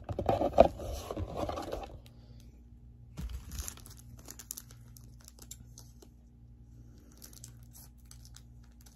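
Foil wrapper of a trading-card booster pack crinkling and tearing as it is opened, loudest in the first two seconds, then lighter crinkles now and then.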